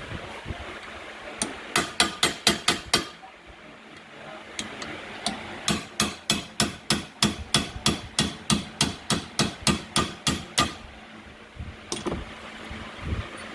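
Hammer tapping on a steel retaining pin to drive it out of a paw on a Virutex FC116U lock mortiser. The taps come in two quick runs, a short one and then a longer one, at about four or five a second, with a few single knocks near the end.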